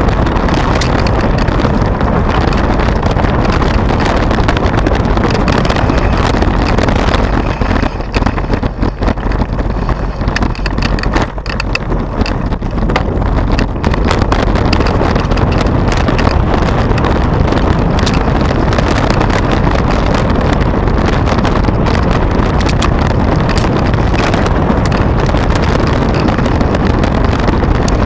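Wind rushing over the action camera's microphone as a mountain bike rolls down a rough dirt and gravel track, with the bike's constant rattle and clatter over stones and ruts. The rush eases and turns choppier for a few seconds about a third of the way through.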